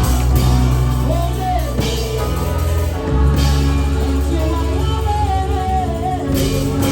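Live gospel praise music: a singer's voice over a band with bass, guitar and drum kit.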